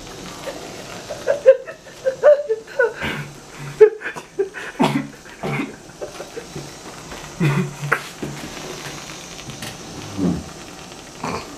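Aerosol can of Reddi-wip whipped cream hissing faintly as it is sprayed straight into a person's mouth. Sharp mouth and throat noises and short muffled vocal sounds come now and then.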